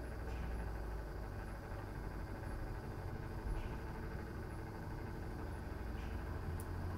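Motorised display turntable running with a steady low hum, with a faint tick every two to three seconds.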